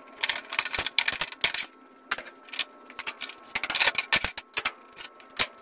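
A rapid, irregular series of sharp clicks and knocks, several a second.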